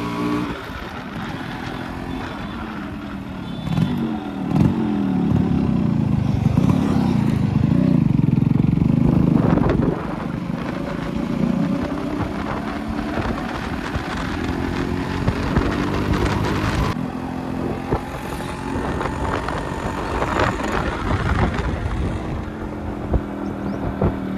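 Yamaha RX135's two-stroke single-cylinder engine under way on the road, revving hard with its pitch rising and falling through the gears from about four seconds in. About ten seconds in it eases back to a steadier, quieter run.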